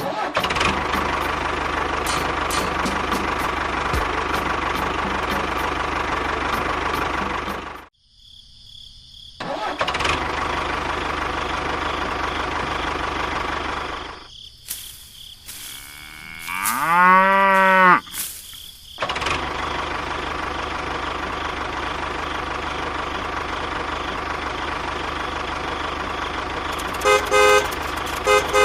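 A steady engine-like running noise, broken off for about two seconds a third of the way in. In the middle comes a cow-like moo that rises and then falls over about a second and a half, and near the end a quick run of short horn toots.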